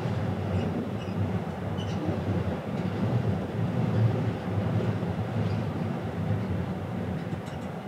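Steady low rumble of a ferry under way, heard on board: the ship's engine drone and hull vibration with an even rushing noise above it.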